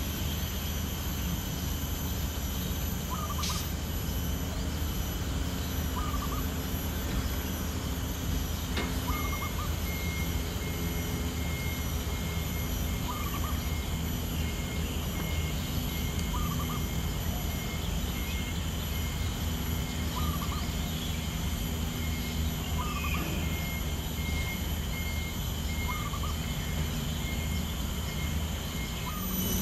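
Outdoor background: a steady low hum, with a bird repeating a short two-note call every few seconds. From about a third of the way in, a fast, even, high-pitched beeping runs until near the end.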